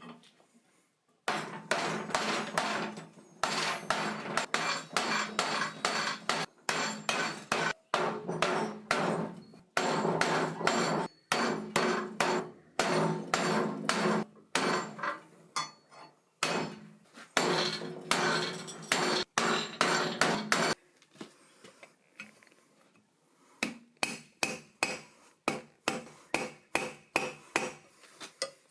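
Hand forging: a long run of hammer blows on hot steel over an anvil, with a ringing tone under the strikes, then after a short pause a series of lighter, evenly spaced blows near the end.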